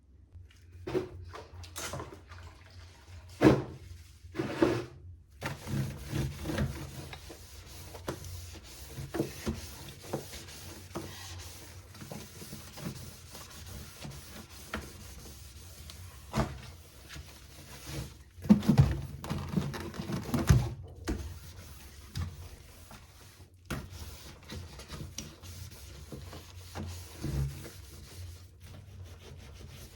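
Clatter and rubbing of fridge shelves and containers being handled and cleaned, with knocks throughout. The loudest are a few seconds in and again past the middle. A steady hiss runs from about five seconds in until past twenty seconds.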